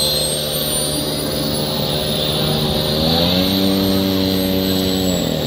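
Engine of a large radio-controlled F-16 model jet running on the ground, a steady hum with a high whine above it. About three seconds in it is throttled up to a higher pitch, then drops back near the end.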